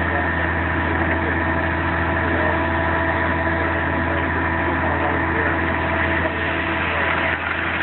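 Semi truck's diesel engine running steadily while its end-dump trailer is raised to tip the load, a constant low drone with steady higher tones over it.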